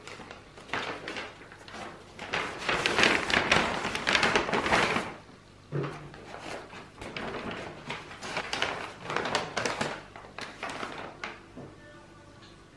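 Crumpled brown kraft paper rustling and crinkling in bursts as a paper-wrapped parcel is handled and slid into a brown paper envelope, loudest a few seconds in. There is a soft knock on the table about six seconds in.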